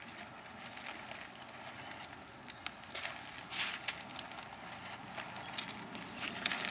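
Wood being split open by hand: irregular small cracks and crackles of splintering wood, with a couple of sharper snaps.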